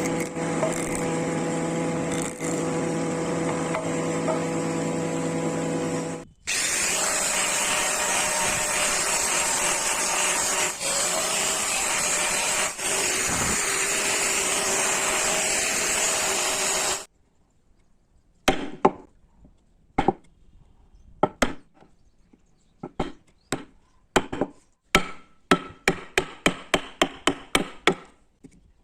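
A small electric power tool runs with a steady hum and grinds into wood, breaking off briefly about six seconds in and then running on with a harsher hiss. It stops about seventeen seconds in. A series of sharp wooden taps and knocks follows, coming faster toward the end.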